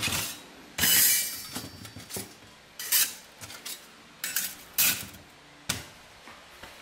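Thin stainless steel plates of a portable folding camping grill clanking and scraping against each other and the wire grate as the grill is dismantled and its flat panels are stacked. A handful of separate metal clanks, the loudest a short scrape about a second in.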